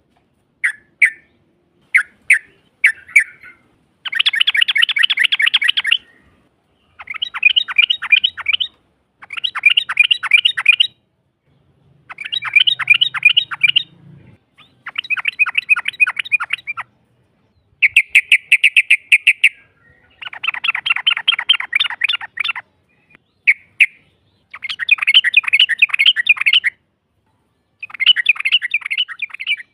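Yellow-vented bulbul (trucukan) calling: a few short single chirps, then a series of long, rapid chattering trills, each about two seconds long, repeated every two to three seconds.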